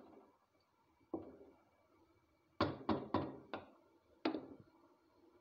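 A wooden spoon knocking against the rim of a cooking pot: one knock just after a second in, then five sharp knocks in quick succession.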